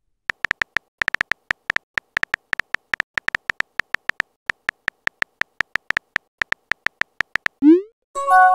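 Texting app's keyboard tap sounds: rapid, irregular clicks, one per typed letter. Near the end a short rising whoosh and a brief chime, the app's message sound.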